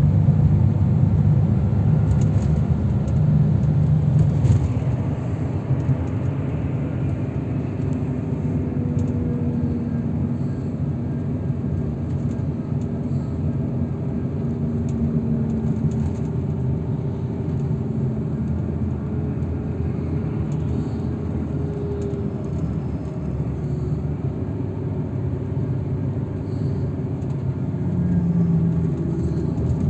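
A road vehicle in motion, most likely the transfer shuttle heard from inside: a steady engine and road rumble whose engine note drifts slowly up and down. It is a little louder in the first few seconds and again near the end.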